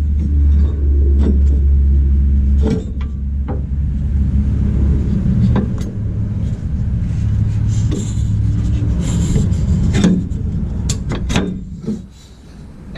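A steady low rumble, strongest in the first few seconds and easing off near the end, under scattered sharp metallic clicks and knocks of tools and brackets being handled on the truck's suspension.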